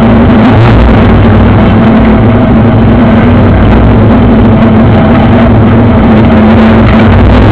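BMW E30's engine driven hard, heard loud from inside the cabin. Its tone holds steady at first, turns ragged through the middle as the revs shift, and settles again near the end.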